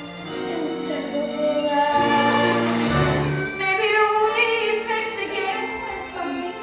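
Young performers singing a musical-theatre song with instrumental accompaniment.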